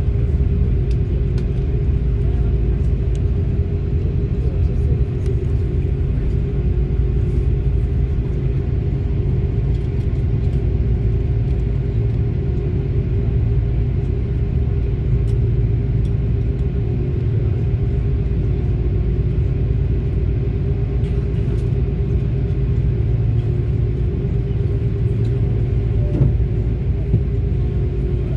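Airbus A330-300 jet engines running: a steady low rumble with a constant hum over it, holding level without rising or falling.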